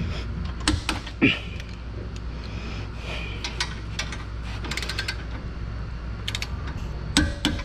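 Torque wrench ratcheting with scattered sharp metallic clicks, including a quick run of clicks near the middle, as bolts are tightened to torque. A steady low hum runs underneath.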